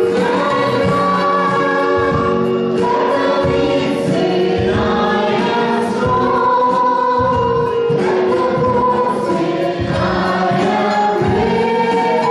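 A mixed vocal group of two women and two men singing a gospel song together into microphones, with long held notes that move from pitch to pitch.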